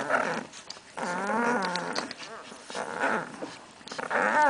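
Two-week-old Hungarian vizsla puppies nursing and whimpering, with a long wavering squeal about a second in and shorter cries around three seconds and near the end.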